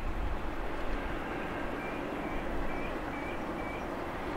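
Steady distant drone of a pair of Class 37 diesel locomotives, English Electric engines, approaching on the line. A run of about five short high chirps sounds in the middle.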